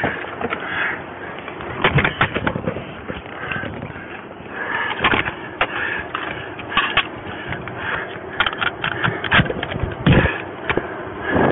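Irregular clatter of sharp knocks, clicks and rustling as a body camera on a police officer's chest brushes and bumps against a patrol SUV's door frame and seat while he reaches into the cabin.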